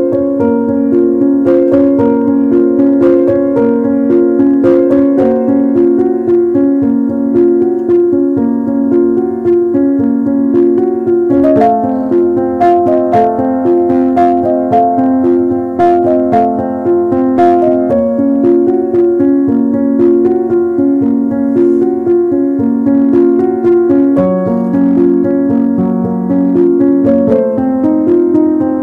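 Background piano music: a continuous run of notes.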